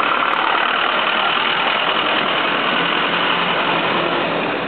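Steady street traffic noise with a motor vehicle's engine running nearby.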